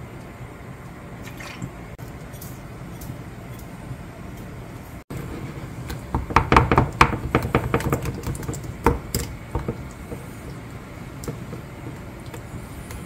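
A wooden spoon stirring thick red-pepper noodle sauce in a ceramic bowl: a quick run of clicks and knocks of wood against the bowl, loudest for a few seconds from about six seconds in, then lighter ticks. Before that, soy sauce poured quietly from a bottle into the bowl.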